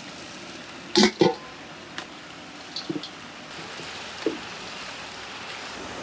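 Kitchen clatter: two sharp knocks close together about a second in, then a few lighter clicks, over a steady background hiss.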